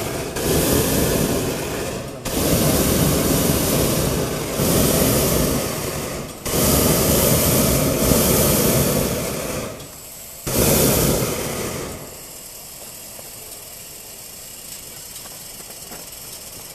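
Hot-air balloon's propane burner firing in four long blasts, each starting and stopping abruptly with short gaps between; about twelve seconds in it shuts off, leaving a much quieter steady hiss.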